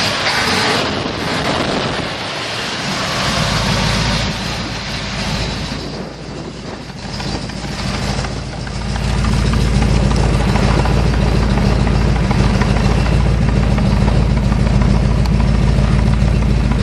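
1972 Ford F-100's 390 FE V8, breathing through Hooker competition headers and a glass-pack dual exhaust, idling steadily while still cold. The low exhaust rumble grows much louder about nine seconds in and then holds.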